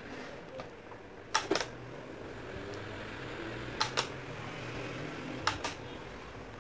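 Push-button switch on the base of a small rechargeable table fan clicking three times, each a quick double click of press and release, over the steady whir of the fan's motor. The presses switch the fan's built-in LED light on and then off.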